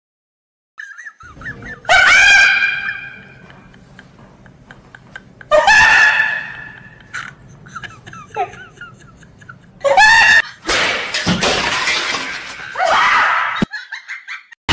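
High-pitched human vocal outbursts that are not speech: two long cries about two and six seconds in, each fading out, then a harsher, noisier stretch of yelling from about ten seconds until shortly before the end.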